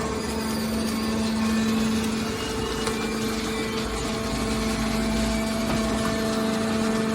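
Horizontal hydraulic metal baler running: a steady hum from its motor and hydraulic pump over a continuous mechanical din. A deeper rumble joins in about four seconds in for a second or so.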